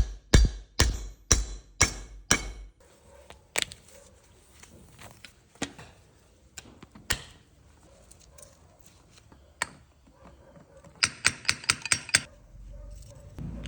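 Hand-tool work on the metal parts of a five-speed manual transmission: a run of sharp knocks, about two a second, then scattered single clicks and taps, and a quick run of about eight clicks a little before the end.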